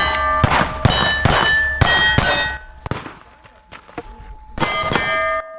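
Pistol shots in quick succession, each hit setting a steel plate ringing with a clear metallic tone. About five land in the first two and a half seconds, then after a pause one more shot and ring comes near the end.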